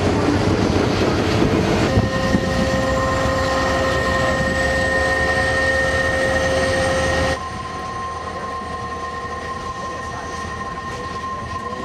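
Alaska Railroad passenger train running, with a steady rumble. From about two seconds in its wheels squeal in several steady high tones as it rounds a curve. The sound drops suddenly past the middle, leaving a quieter rumble with one squealing tone.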